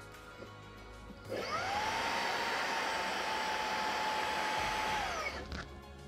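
Xiaomi Mi Vacuum Cleaner Mini handheld vacuum, fitted with its extension tube and brush nozzle, switched on about a second in. Its motor whine rises quickly to a steady pitch over a rush of air and runs for about four seconds, then it is switched off and the whine falls away as the motor winds down.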